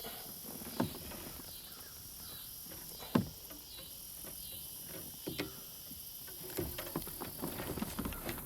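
A steady chorus of insects chirping in a regular pulse, about twice a second. Short knocks and clicks of gear being handled in a kayak come through it, louder and more frequent near the end.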